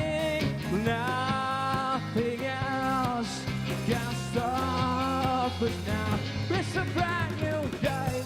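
A band playing an instrumental passage without lyrics: a lead melody of long held notes that slide up and down over a steady bass line.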